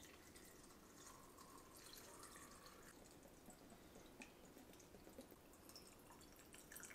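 Faint trickle of liquid poured into a glass mason jar packed with shoots: vinegar and then water going in for a quick-pickle brine.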